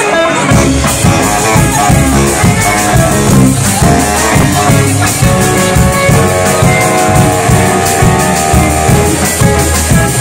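Live rock band playing an instrumental passage: upright double bass, guitar and drums, with the full band and its steady beat coming in about half a second in.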